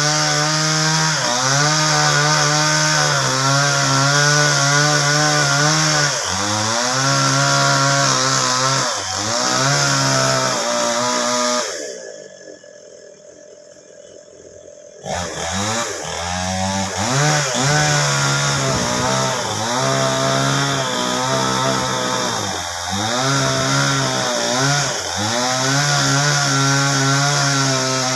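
Chainsaw cutting into a sengon tree trunk, the engine's pitch dipping and recovering as the chain bites and clears the wood. The saw's sound breaks off abruptly for about three seconds near the middle, then comes back.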